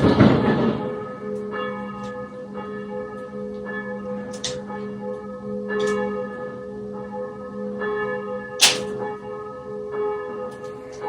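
Church bells ringing: strike after strike, each tone ringing on under the next. A noisy rush fades away in the first second, and a few sharp clicks stand out over the bells, the loudest about two-thirds of the way through.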